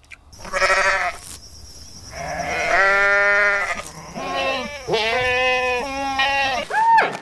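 Farm livestock bleating, a sheep or goat: a series of about five bleats, some short and some drawn out over a second or more.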